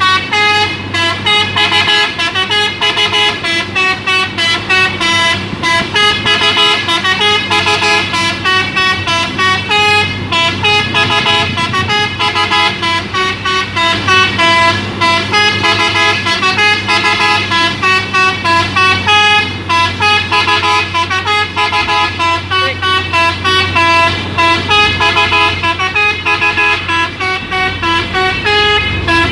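Telolet melody horn on a Hino Euro 2 dump truck sounding non-stop, a quick tune of stepped multi-tone notes, over the steady hum of the truck's diesel engine.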